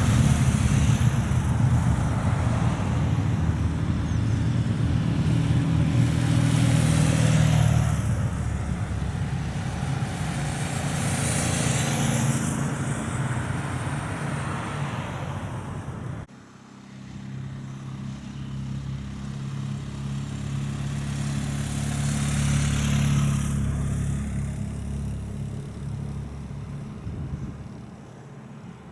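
Motor vehicles passing one after another on a road, motorcycles and a car, their engine and tyre noise swelling and fading several times before dying away near the end.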